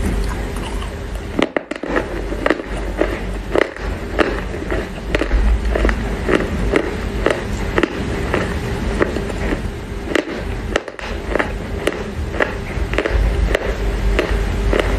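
Close-up chewing of a mouthful of wet Chinese loess clay: a steady run of sharp crunches, about two or three a second.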